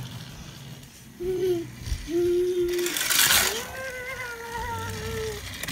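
A young child's voice making drawn-out, wavering vocal sounds: a short one, a longer held one, then after a brief hiss about three seconds in, a longer held one.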